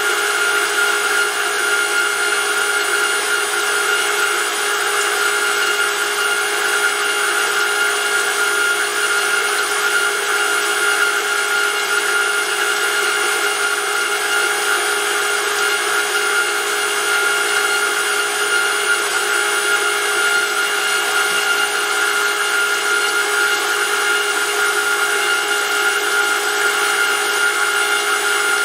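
Electric motor driving a hydraulic oil pump on a test bench, running at a steady speed: a steady whine of several pitches over a hiss, with no change in speed.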